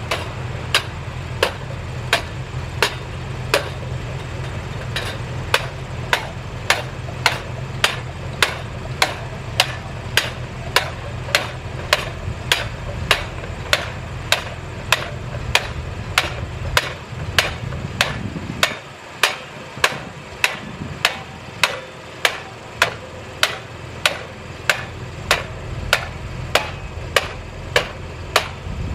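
Steady hammer blows on silo construction, about one and a half strikes a second, each a sharp crack. An engine runs low underneath, rises briefly, then stops about two-thirds of the way through while the hammering goes on.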